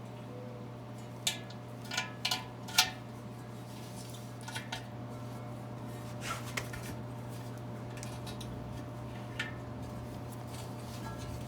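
Metal clinks and taps from the parts of a split rim being handled and fitted together: a quick cluster of four sharp clinks, then a few lighter taps spread out. A steady low hum runs underneath.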